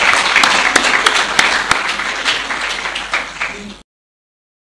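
Audience applauding in a lecture hall, the clapping growing quieter and then cut off abruptly near the end.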